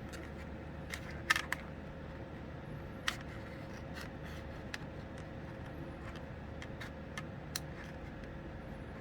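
Scattered light clicks and taps of small hard parts being handled, with a louder cluster of clicks about a second and a half in and another near three seconds, over a steady low hum.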